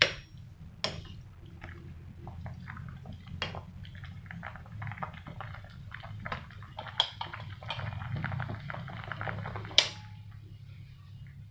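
Pot of shrimp and vegetable soup still simmering right after the gas burner is turned off, a continuous light bubbling and popping of the broth. A few sharp clicks break in, the loudest about ten seconds in, over a low steady hum.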